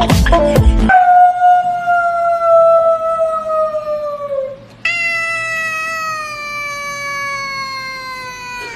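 Tabby cat giving two long, drawn-out meows, each slowly falling in pitch; the second begins about five seconds in. Background music cuts off about a second in, before the first meow.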